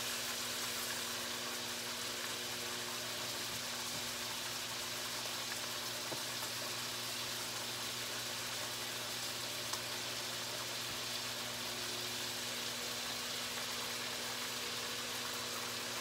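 Bacon frying in melted margarine in a cast-iron skillet: a steady sizzle and hiss, with a couple of faint ticks. A low steady hum sits underneath.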